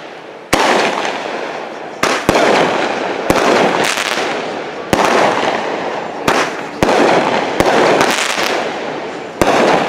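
Aerial fireworks bursting overhead: about nine sharp bangs at uneven intervals of half a second to a second and a half. Each bang is followed by a crackling, fizzing tail as the stars burn out.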